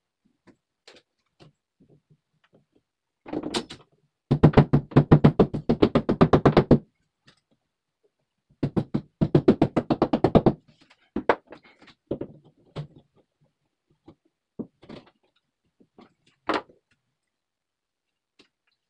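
Power drill working into the wall at the marked spots in two runs of fast, rapid pulsing, each about two seconds long, followed by a few scattered knocks and clicks.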